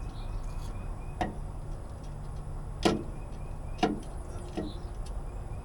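A binder chain handled against metal, giving four sharp clanks: one about a second in, the loudest about three seconds in, another shortly after, and a fainter one near the end. A low steady rumble sits underneath.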